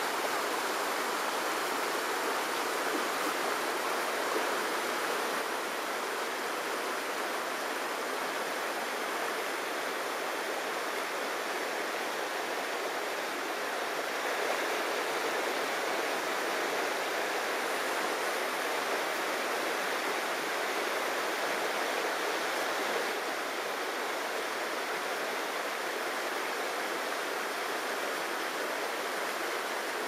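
Shallow mountain river running over rocks: a steady, unbroken rush of water.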